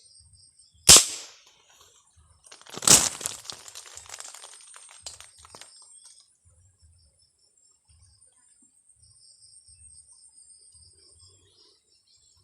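A marble gun fires once with a sharp crack. About two seconds later comes a louder crash, then some three seconds of rustling and crackling in leaves and branches that dies away. Crickets chirp steadily throughout.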